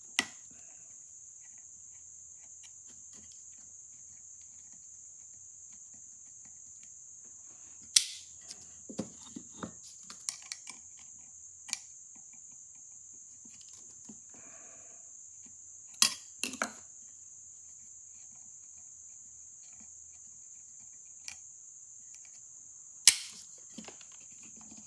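Scattered sharp metal clicks and clinks of tools and small parts being handled while a Victor M phonograph motor is taken apart, loudest a few times around 8, 16 and 23 seconds in. A steady high-pitched hiss runs underneath.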